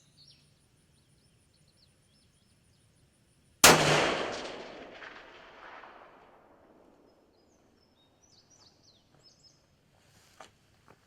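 A single shot from a .338 Lapua Magnum rifle, about three and a half seconds in: a sharp crack followed by a long rolling echo that fades out over about three seconds.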